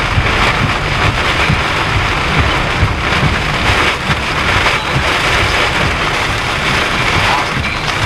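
Heavy wind-driven rain pelting a vehicle's windshield and roof, heard from inside, over a steady low rumble of wind buffeting the vehicle. These are the winds and rain of a rain-wrapped tornado.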